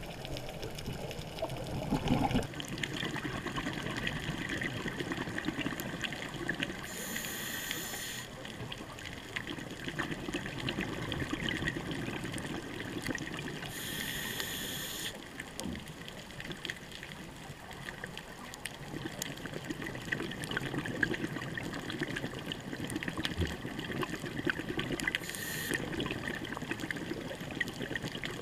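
Underwater sound on a scuba dive: steady water noise with a fine crackle, and a diver's exhaled bubbles rushing from the regulator three times, several seconds apart.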